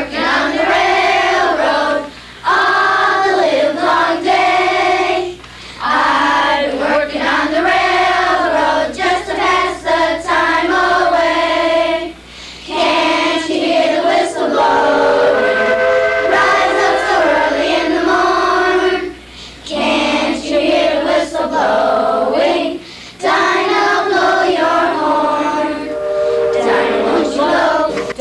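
A song sung by a choir of voices, with musical backing, in phrases broken by short breaths.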